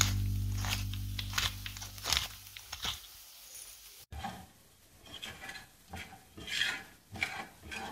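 Light kitchen handling sounds: utensils scraping and clicking against a pan or dish in scattered strokes. Background music fades out over the first couple of seconds.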